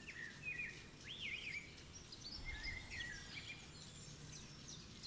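Faint birdsong: small birds giving short chirps and quick warbled phrases, scattered through the quiet, over a faint low steady hum.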